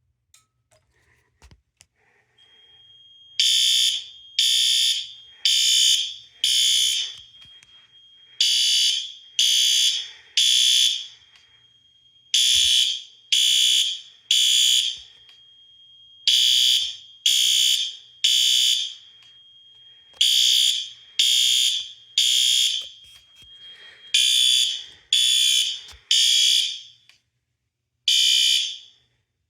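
Fire alarm horn sounding in the temporal-three evacuation pattern: three short harsh blasts, a pause, then again, about every four seconds, starting about three seconds in. The alarm has been set off by a Bosch multi-sensor smoke detector under test. A faint steady high beep runs underneath for most of the time.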